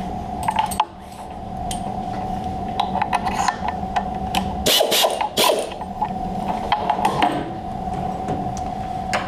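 Tool change on a CNC milling machine: a tool holder with a quarter-inch end mill clinks and knocks against the spindle as it is fitted by hand. It comes in several short groups of metal clicks, the loudest about five seconds in, over a steady hum.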